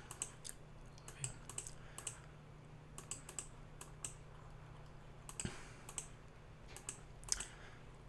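Computer keyboard and mouse clicking, irregular clicks a few times a second, over a low steady hum.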